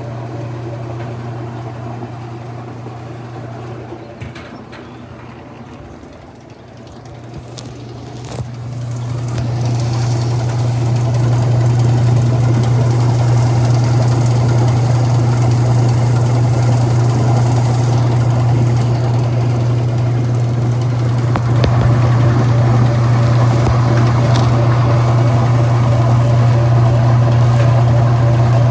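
Whirlpool Direct Drive top-load washing machine in its spin cycle: a steady motor hum with the tub spinning. It eases off a little, then builds back up louder about eight to twelve seconds in and rises a step again about two-thirds of the way through.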